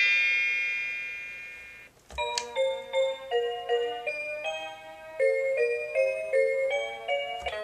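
VTech Disney Princess Talk and Teach toy phone's electronic sounds: a chime that fades away over about two seconds, a click, then a quick electronic tune of short stepped notes.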